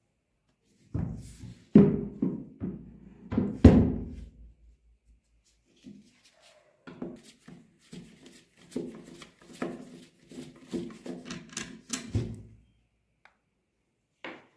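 A rusty air rifle knocked and set down on a hard table a few times. Then a screwdriver works a rusted screw in the wooden stock, in a run of short scraping strokes at about two a second.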